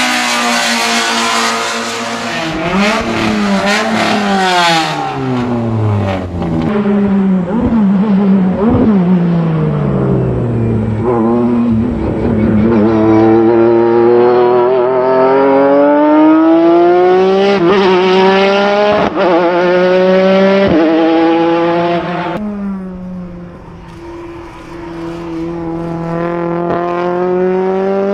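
Honda race car engines running hard, the pitch repeatedly climbing through the revs and then dropping, with a second engine crossing the first in the opening seconds. Near the end the sound eases off briefly, then the engine note climbs again.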